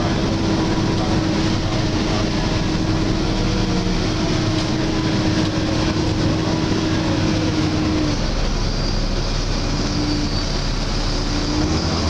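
Volvo B7LA articulated bus (Wright StreetCar) heard from inside the passenger saloon while under way: steady diesel engine and road noise. Over it runs a steady hoover-like whine from the engine cooling fan, which breaks off about eight seconds in and comes back shortly after.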